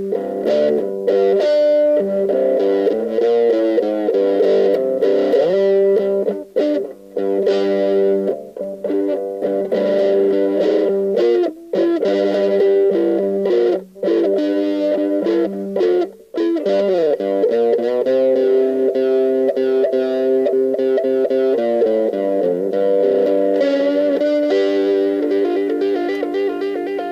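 Electric guitar played with an overdriven 'brown sound' tone, working through boogie riffs of held notes and chords, with several brief, sudden breaks where the sound is cut off.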